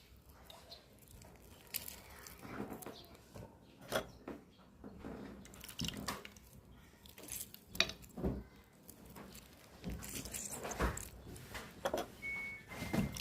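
Irregular light clicks, knocks and rubbing sounds of things being handled, such as kitchen utensils or containers, with a faint steady high tone coming in near the end.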